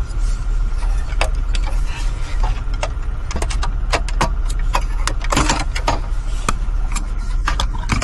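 Sharp plastic clicks and snaps as dashboard air vents and trim pieces are pried off and handled, over a steady low hum.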